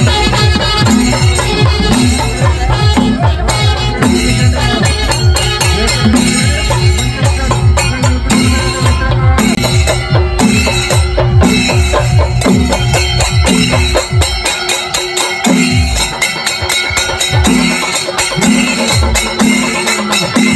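Percussion-driven music with fast jingling cymbal or rattle strokes over a steady, regular drumbeat; the deep beat drops out about two-thirds of the way through.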